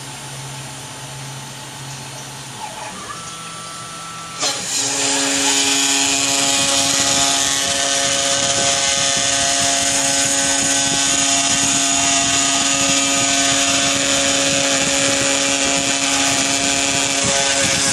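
CNC router spindle with an end mill cutting a panel: a steady, high whine with a hiss of chips. About four seconds in it grows much louder as the cutter bites into the workpiece.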